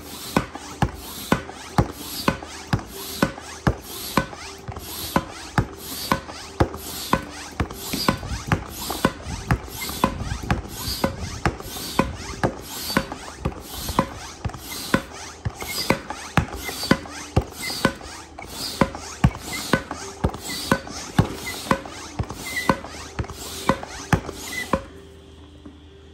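Tobin Sports inflatable-kayak hand pump worked up and down at about two strokes a second. Each stroke is a sharp click with a short rush of air as it inflates a kayak chamber that is still at low pressure. The pumping stops about a second before the end.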